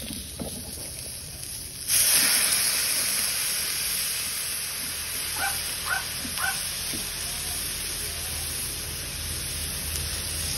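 Raw chicken pieces hit hot oil in a wok, and a loud sizzle starts abruptly about two seconds in and keeps going steadily. Midway, a dog gives three short yips.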